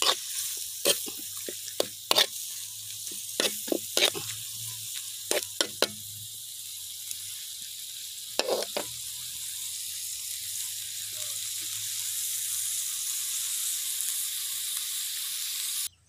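Fermented beef sausage and holy basil sizzling steadily in a wok over a fire, while a metal ladle scrapes and clinks against the pan many times in the first six seconds and again about halfway through. The sizzle cuts off suddenly just before the end.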